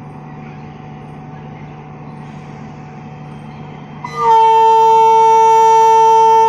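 Indian Railways electric locomotive horn: one long, loud, steady-pitched blast starting about four seconds in, over a low steady hum.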